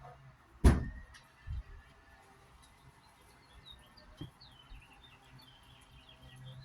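Birds chirping in a quick run of short calls through the second half, with a sharp loud knock about half a second in and a duller thump a second later.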